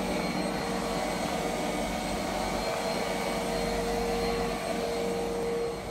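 A steady motor hum with a whir and a constant tone, dipping slightly near the end.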